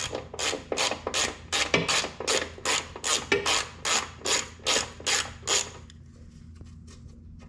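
Ratchet wrench with a 10 mm socket clicking in quick, even strokes, about three or four clicks a second, as a bolt is backed out. The clicking stops a little under six seconds in.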